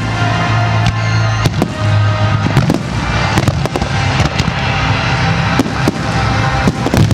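Fireworks display going off in a dense barrage: many sharp bangs and crackling shell bursts in quick succession, over music with a steady bass.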